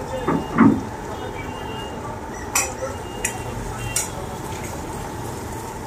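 Food-stall work sounds over a steady background noise: a short knock near the start, then three sharp clinks of utensils about a second apart.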